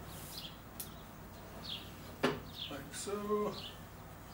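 A few sharp metal clicks and a knock as the miter chop saw's clamp bar is handled and dropped into its slot at the front of the saw base, the loudest knock a little past two seconds in. A bird chirps several times between, each call a short falling note.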